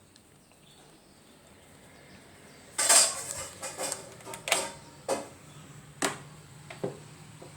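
A run of about six sharp clicks and clinks of small hard parts and tools being handled and knocked together, the first and loudest about three seconds in.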